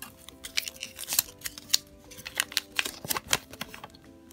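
Thin plastic toy wrapper and a folded paper leaflet crinkling and rustling as they are handled and unfolded, in quick irregular crackles, over soft background music.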